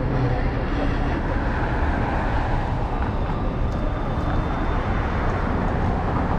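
Steady, loud rumble of moving vehicle noise with an even hiss over it.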